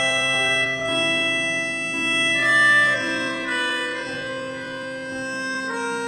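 Background music of slow, held keyboard chords that change every second or so.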